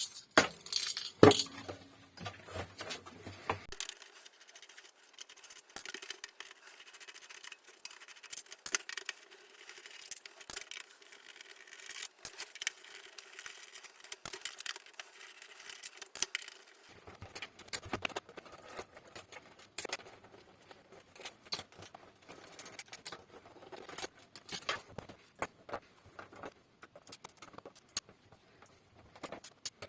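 Irregular small clicks, taps and light scrapes of small hard objects being handled, with a faint steady hum for a stretch in the middle.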